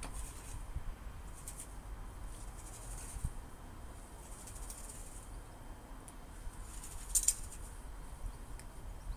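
A long-handled garden tool scraping over a lawn in repeated strokes, a scratchy swish about once a second, the sharpest one about seven seconds in. A low steady rumble runs underneath.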